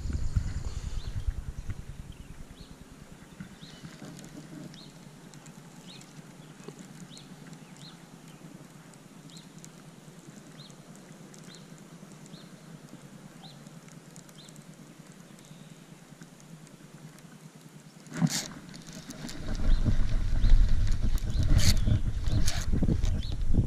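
Quiet pond-side background with faint, evenly spaced ticks. Near the end a sharp click, then loud rumbling handling noise and clicks as hands take hold of a baitcasting rod and reel.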